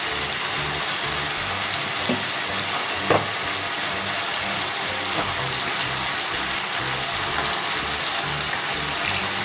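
Onions, capsicum and ginger-garlic-chilli paste sizzling steadily in hot oil in a kadai, with a few faint knocks, one around two seconds in and one around three seconds in.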